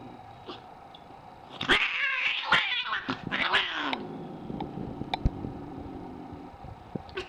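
Scottish Fold cat giving an angry, rough yowl mixed with hissing, lasting about two seconds from a little over a second in, the pitch sliding down at the end. It is a defensive outburst at an oven mitt poking at it. A few faint sharp clicks follow.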